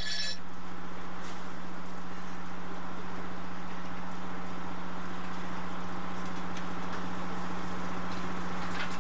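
Engine running at a steady speed: a constant low hum that does not change.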